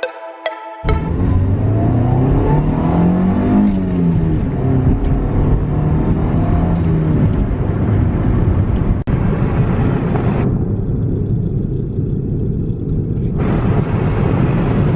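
1999 Honda Civic driving, engine and road noise with wind on the microphone, the engine pitch rising and falling about two to four seconds in. The sound changes abruptly a few times, as at cuts between driving shots.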